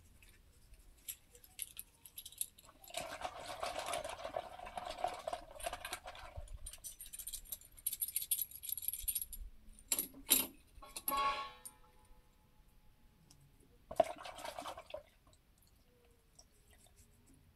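Small metal parts and tools clinking and rattling by hand during work on a tractor's front wheel hub and bearing, with a stretch of scraping. About ten seconds in come two sharp knocks and a short metallic ringing, like a metal part dropped or set down, and a brief rattle follows a few seconds later.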